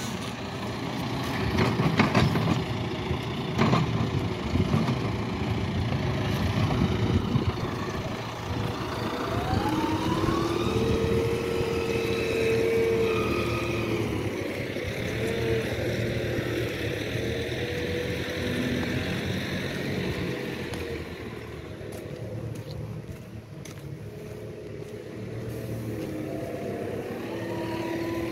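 John Deere tractor's diesel engine running under load as it works its front-loader manure grab, revving up with a rising pitch about ten seconds in. Two sharp knocks come in the first few seconds.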